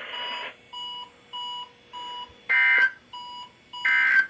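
Several NOAA weather alert radios alarming, set off by the weekly warning alarm test: one keeps up a steady run of short, high beeps about two a second, while another gives a louder, multi-tone beep twice, just over a second apart.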